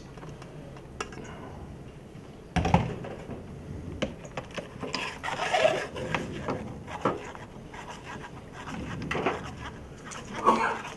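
Blended liquid being strained through a fine-mesh metal sieve into a steel bowl, with a spoon scraping and rubbing in the mesh and small metal clicks. One sharp knock about two and a half seconds in, like metal set down on the counter.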